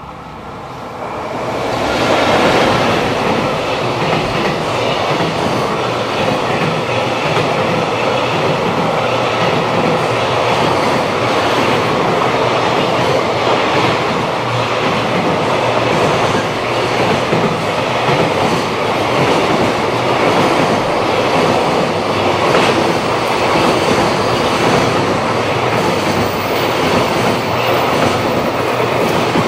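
JR Freight container train passing close by, hauled by an EF210 electric locomotive: the sound swells as the locomotive arrives and reaches full loudness about two seconds in. Then comes a steady rush and clatter of the container wagons' wheels on the rails.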